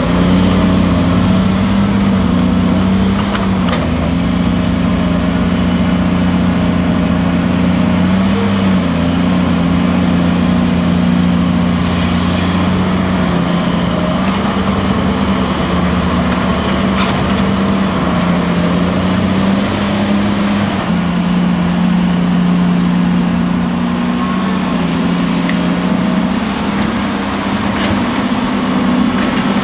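Caterpillar 330C LN excavator's diesel engine running under working load, its pitch dipping and recovering every few seconds as the hydraulics dig and swing the boom. A few faint knocks from the bucket and earth are heard now and then.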